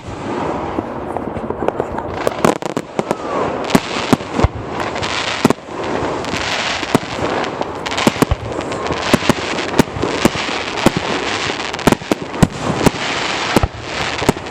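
Fireworks bursting in a dense barrage: many sharp bangs at irregular intervals, with continuous crackling between them.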